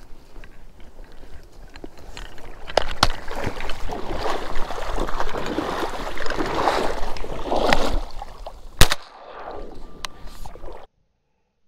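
Dry reeds rustling and brushing loudly as a duck hunter rises and moves through the cattails, with a couple of clicks a few seconds in. Then a single sharp 28-gauge shotgun shot near the end, fired at a drake canvasback on the water.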